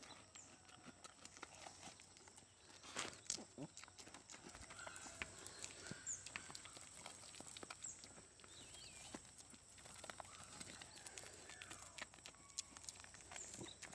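Faint, irregular clicks and soft taps of a goat eating a banana from a hand: its mouth working at the fruit and its hooves shifting on wooden boards.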